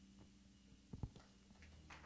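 Near silence: room tone with a faint low hum and one short, soft low thump about a second in.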